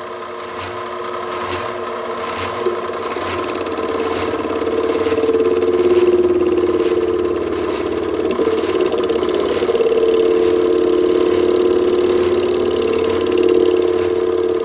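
Small lathe running steadily while machining a plastic part, its motor giving a steady hum with faint regular ticks about twice a second.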